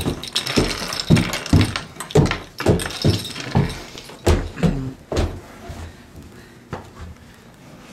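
Heavy footsteps thudding about twice a second, stopping about five seconds in.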